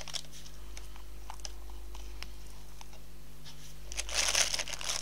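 Plastic piping bag crinkling as thick whipped soy wax is scraped into it with a silicone spatula, with a brief rustle about four seconds in. The rest is faint soft clicks and squelches over a low steady hum.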